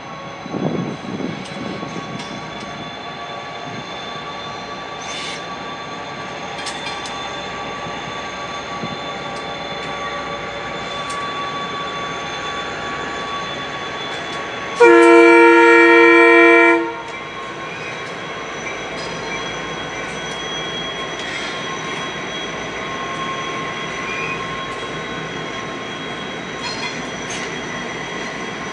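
Norfolk Southern diesel freight train passing, a steady rumble with thin high-pitched wheel squeal and scattered clicks. About fifteen seconds in, a diesel locomotive air horn sounds one chord-like blast lasting about two seconds, the loudest sound.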